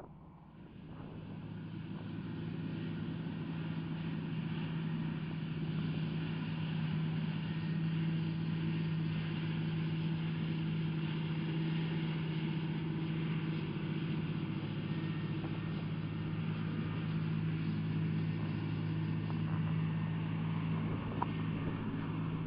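Large farm tractor's diesel engine running at a steady pitch under load while hauling a grain cart, fading up over the first few seconds and then holding level.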